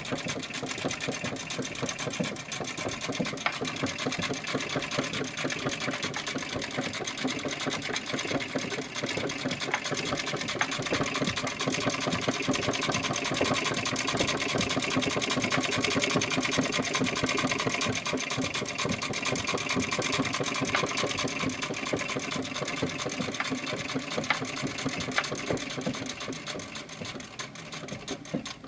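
1865 Florence sewing machine running, a rapid, even clatter of clicks that slackens near the end.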